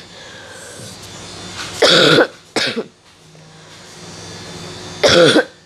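A person coughing: a quick double cough about two seconds in, then a single cough near the end.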